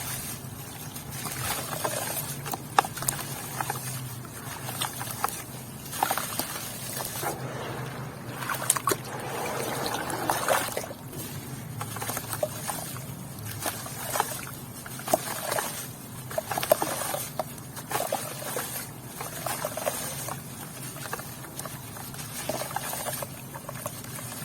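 Chunks of white cement with grains crumbling and crunching, with a dense run of irregular crackles and clicks and some wet, watery sloshing.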